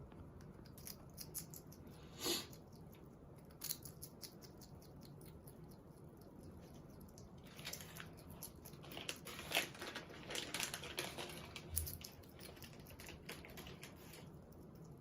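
Pet hedgehog eating, crunching food in small clicks and crunches: a few scattered ones early, then a denser run from about halfway until near the end.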